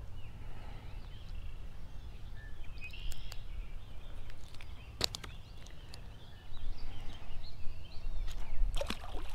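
Small birds chirping over a steady low outdoor rumble, with a few sharp clicks and handling noises while a small fish is unhooked from a jig and the line is cast back out. The rumble grows louder about two-thirds of the way through.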